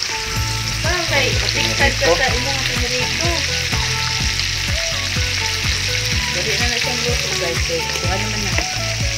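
Pieces of fish frying in hot oil in a wok: a steady sizzle.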